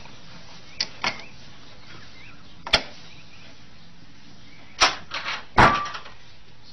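Sharp knocks and clacks from a cat puzzle box as its latch and door are worked open: a single knock about a second in, another near three seconds, then a quick cluster of three near the end, the last the loudest.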